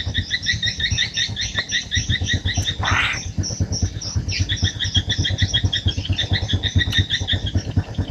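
A fast, even series of short high chirps, about five a second, with a brief break about three seconds in where a short hiss sounds, then the chirping resumes.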